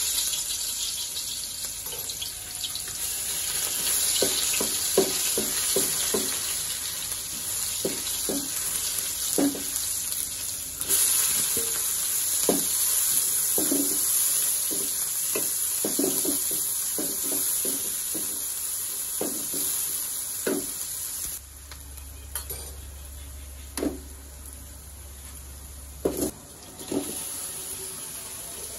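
Hot ghee sizzling in an aluminium kadai as chopped garlic and then onions go in, with a wooden spatula scraping and knocking against the pan. The sizzle starts suddenly, grows louder about a third of the way in, and drops to a quieter frying past the middle.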